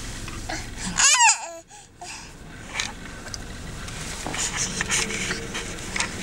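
A toddler gives one short, loud, high-pitched squeal about a second in, its pitch wavering up and down. Steady low background noise of the car interior and a few small rustles lie under it.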